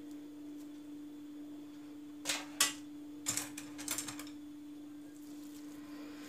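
Wooden kebab skewers and hands at work on a kitchen counter give a few sharp clicks and light knocks in two clusters, about two and about three to four seconds in, over a steady hum.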